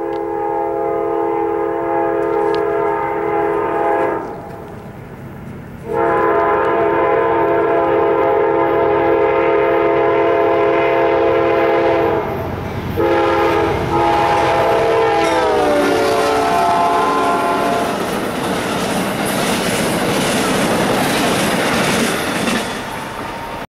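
Amtrak passenger train's air horn blowing for the grade crossing in several blasts, two long ones and then shorter ones, the last dropping in pitch as the locomotive passes. Then the loud rumble and clickety-clack of the passenger cars rolling by.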